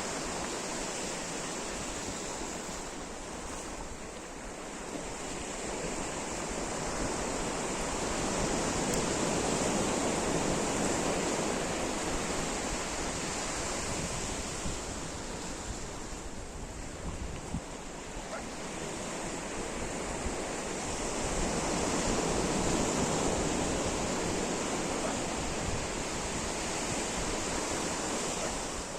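Sea surf breaking and washing up the beach, a steady rushing noise that swells twice, about a third of the way in and again past three quarters, and eases in between.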